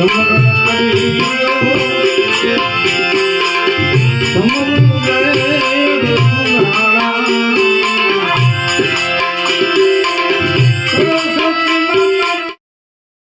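Devotional bhajan music: hand-drum beats under long held instrument notes. It cuts off abruptly about half a second before the end.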